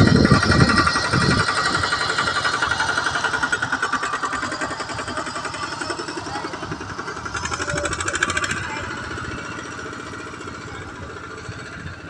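Farm tractor engine running with a fast, even chugging rattle, growing gradually fainter.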